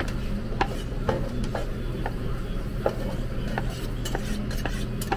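Grilled picanha being slid off a metal skewer and sliced with a large knife on a plastic cutting board: scattered clicks and knocks of blade and skewer on the board, over a steady low hum.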